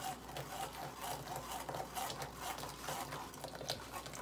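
A metal spoon scraping and pressing blended blackberry pulp against a fine-mesh metal sieve, making many small irregular scrapes and clicks while juice strains through.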